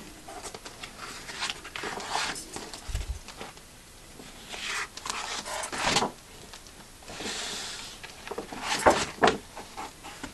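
Large paintings on stiff board being leafed through in a rack, rustling and scraping against each other as they are pulled forward, with a few sharp knocks of the boards near the end.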